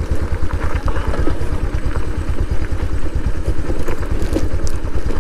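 Motorcycle engine running steadily with an even, regular beat while the bike rolls slowly along a rough, stony dirt track.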